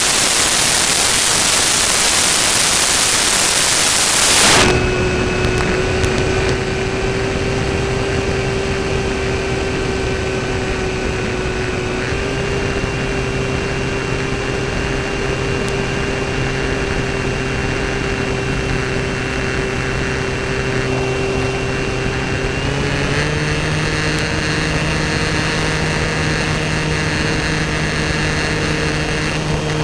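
A loud, even hiss cuts off suddenly a few seconds in. It gives way to the steady whine of an electric motor and propeller on an 800 mm Airfield T-28 Trojan RC model plane in flight, heard from a camera mounted on the plane. About two-thirds of the way through, the whine steps up in pitch as the motor speeds up.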